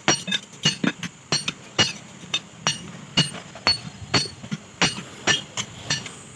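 Steel rebar tyre levers knocking and prying against a truck wheel's steel rim and lock ring as the tyre bead is broken loose: a run of sharp metallic clinks, about three a second, some ringing briefly.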